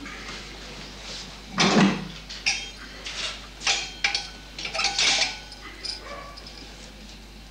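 A butcher's knife and meat knocking on a cutting board. There is one fuller thud about a second and a half in, then a quick string of short clattering knocks.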